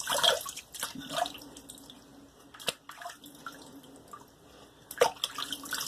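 Water splashing and dripping as a face is rinsed by hand, in irregular splashes, louder near the start and again about five seconds in.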